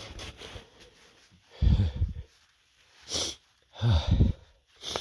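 A man sniffing and breathing hard between sneezes: two sharp sniffs, about three seconds in and at the end, and two heavy, voiced gasping breaths at about two and four seconds in.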